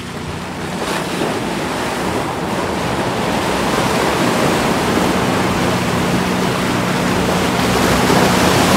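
Muddy water splashing and churning around the tyres of a Mercedes G580 electric off-roader as it wades through a flooded track, growing louder over the first few seconds and then holding steady. A faint low hum runs beneath it in the second half.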